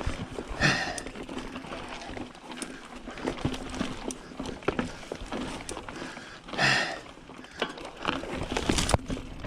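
Mountain bike on a muddy trail, with scattered knocks and clicks from the bike moving over the ground. The rider lets out two hard breaths or grunts, about a second in and again near seven seconds.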